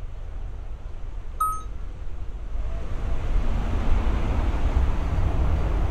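Low rumbling noise that grows louder after about two and a half seconds, with one short high beep about a second and a half in.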